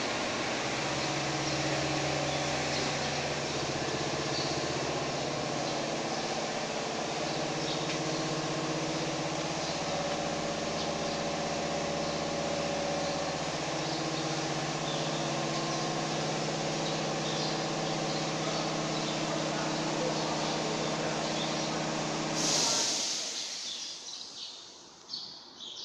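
CNC router machinery running, a steady mechanical drone with several steady pitched hums under a hiss. It breaks off sharply about 22 seconds in, leaving a much quieter background.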